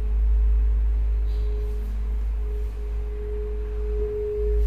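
Ambient electronic soundtrack: a single steady pure tone, like a sine wave, held over a deep bass drone, the tone swelling a little near the end.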